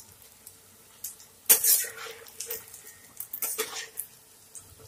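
A metal cooking utensil scraping and knocking against a nonstick kadai while turning soya bean kababs in deep-frying oil. There are several short clatters, the loudest about a second and a half in.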